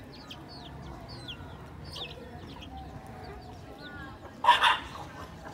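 Domestic chickens calling while they forage: thin high peeps keep coming, and about four and a half seconds in one bird gives a single loud, short squawk.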